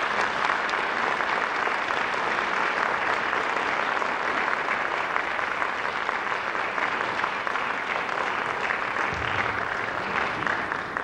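Audience applauding: a steady, sustained round of clapping from a large crowd, easing slightly near the end.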